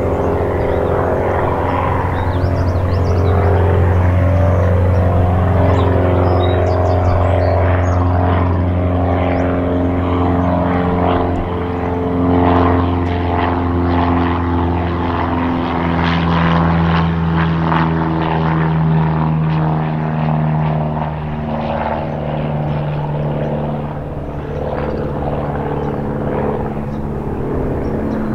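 A Cessna 172S's four-cylinder Lycoming IO-360 engine and two-bladed propeller droning at climb power as the plane climbs out after takeoff, the pitch of the drone shifting slowly as it passes overhead.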